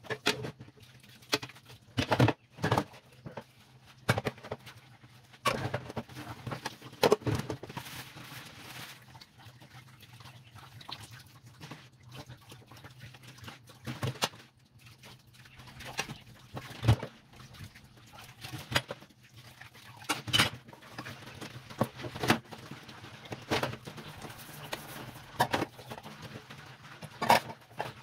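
Dishes being washed by hand at a tap: irregular clinks and knocks of cups and utensils against each other and a plastic basin, with some water splashing, over a faint steady hum.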